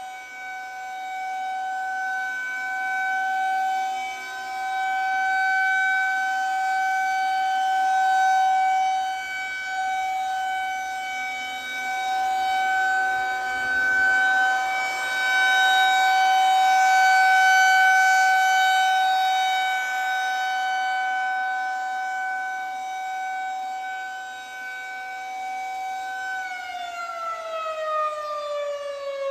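Federal Signal 2001-130 rotating outdoor warning siren sounding its steady one-minute alert tone, swelling and fading in loudness as the head turns. About 26 seconds in, the tone ends and the siren begins winding down, its pitch falling steadily.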